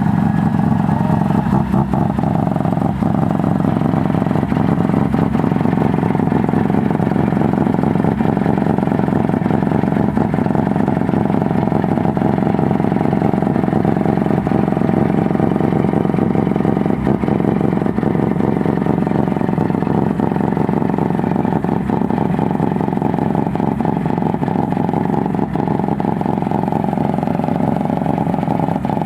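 Mazda RX-7 FD's rotary engine running steadily at a fairly constant pitch, with a few short clicks over it.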